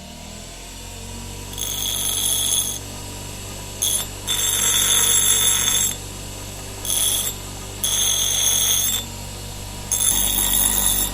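A bell rung in six bursts of uneven length, some brief and some over a second long, over a steady low hum that swells up at the start.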